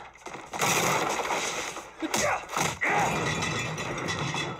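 Sound effects from a martial-arts film fight: dense noise with a few sudden hits or crashes clustered about two to three seconds in.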